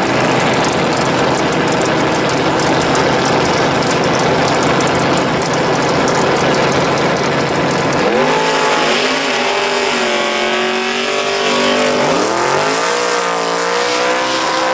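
Drag-racing pickup truck's engine running steadily and loudly, then from about halfway it revs up, eases off, and revs up again as the truck does a burnout, spinning its rear tyres.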